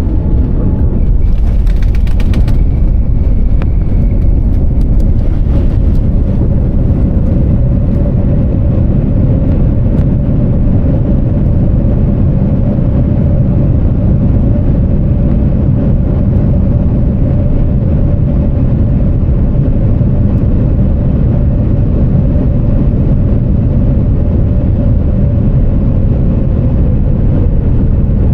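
Loud, steady cabin rumble of a Boeing 787 Dreamliner touching down and rolling out on the runway, with a brief clatter about a second or two in. A steady engine tone runs through it and falls away near the end as the aircraft slows.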